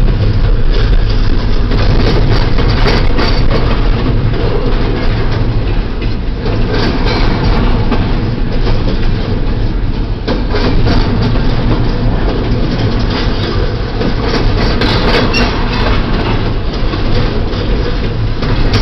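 Double-stack intermodal freight train's well cars rolling past, a loud steady rumble of steel wheels with a running clickety-clack of clicks over the rail joints.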